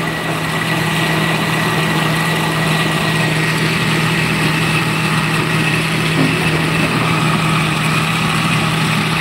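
Oster countertop blender's motor running steadily, blending a thick liquid mixture in its glass jar: a constant low hum with a steady high whine over it.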